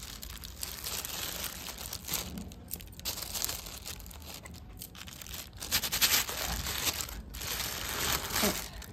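Clear plastic sheet crinkling and rustling irregularly under the hands as a steel bowl is pressed through soft dough and the dough is patted flat, loudest about six seconds in.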